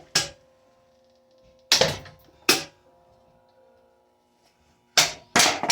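Sharp metallic clanks as a Hampton Bay Quick Connect ceiling fan is struck while being smashed apart. There are about five hits: three spread out, then two in quick succession near the end.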